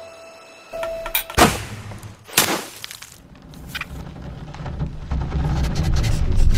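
Two sharp, loud impact sound effects about a second apart, followed by a low rumbling that builds and grows loud toward the end.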